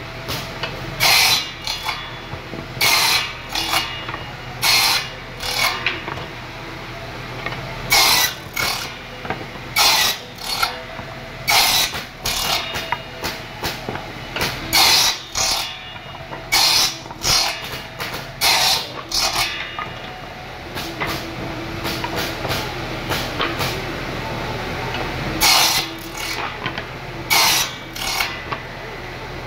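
Table saw's circular blade ripping pallet boards into thin strips: a short burst of cutting noise every second or two over the steady run of the saw. The cutting stops for several seconds about two-thirds of the way through while the saw keeps running.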